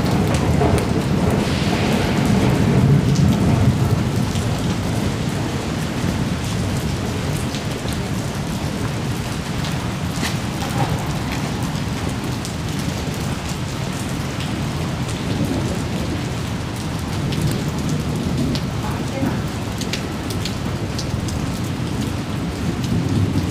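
Steady rain with scattered drips and splashes, over a low rumble that swells in the first few seconds.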